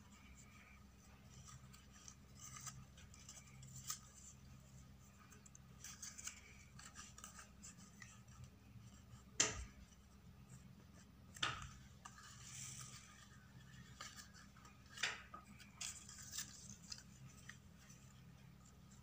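Faint rustling and rubbing of paper petals being handled and pressed together, with a few sharp clicks, the loudest about nine and a half seconds in.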